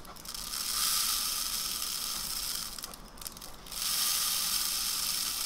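Instant coffee granules pouring through a paper tube into a jar of shampoo base, a steady gritty hiss that breaks off briefly about three seconds in and then resumes.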